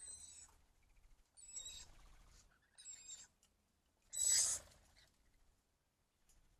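Rainbow lorikeets giving four short, harsh screeching calls, the loudest about four seconds in.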